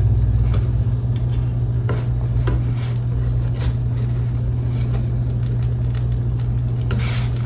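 Kitchen utensils scraping and clicking against a frying pan a few times as French toast and eggs fry, over a steady low hum.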